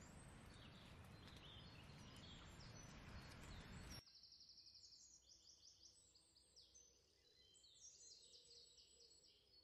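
Faint songbirds chirping and trilling in quick repeated high notes. For the first four seconds they sit over a low, steady outdoor noise that drops away abruptly, leaving only the birdsong.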